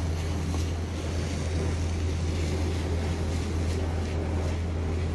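Vegetables stir-frying in a wok on a barbecue grill: an even frying hiss with light scrapes of a wooden spatula, over a constant low hum.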